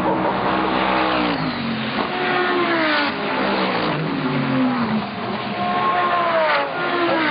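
GT race car engine at high revs, its pitch falling and climbing several times as it works through the gears.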